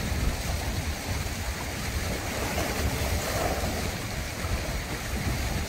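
Small sea waves washing steadily over shore rocks in shallow water, with wind buffeting the microphone.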